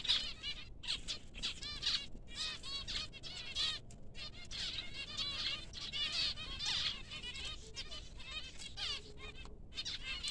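Several zebra finches calling in a dense, continuous chatter of short, quickly repeated call notes, with a few brief pauses.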